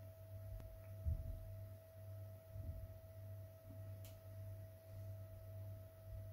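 Quiet room tone: a faint, steady single-pitch whine with a low hum beneath it, and a soft low thump about a second in and a brief click about four seconds in.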